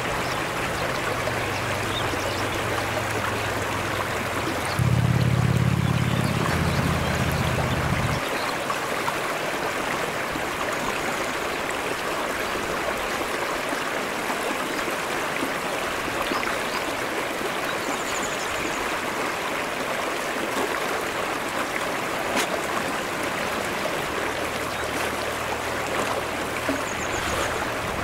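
Shallow mountain stream running over flat rock slabs, a steady rushing and trickling. A low steady hum sits under it for the first eight seconds, swelling from about five seconds in, and returns near the end.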